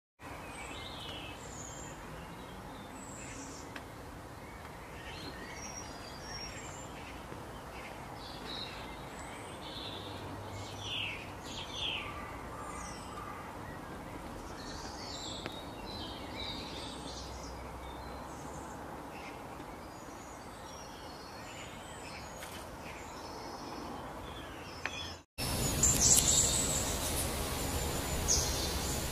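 Outdoor ambience of wild birds calling, scattered short chirps and trills over a steady low background hiss. About 25 seconds in it cuts abruptly to a louder recording with denser high-pitched calling.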